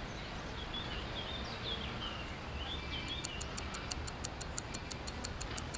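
Faint birds chirping over a steady low hiss. About three seconds in, a rapid high ticking starts, around seven ticks a second.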